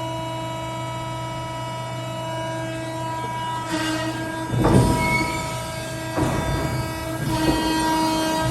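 Bystronic ByShear VR6 CNC hydraulic guillotine shear running with a steady hum. About four and a half seconds in comes a loud crash, the blade stroke, with smaller clattering surges before and twice after it.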